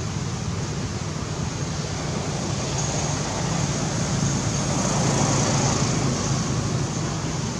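Steady outdoor background noise with a low hum, and a faint high steady hiss that comes in about three seconds in.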